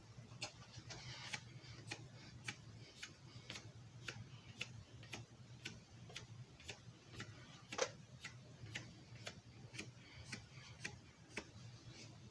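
Steady, evenly spaced ticking, about two ticks a second, with one louder tick a little past the middle, over a faint low hum.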